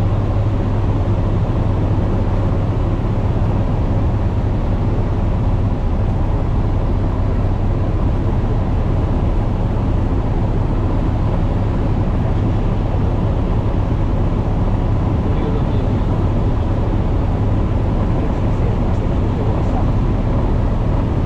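Cessna 150H light aircraft in flight: a steady engine and propeller drone with a strong low hum and airflow noise, unchanging throughout.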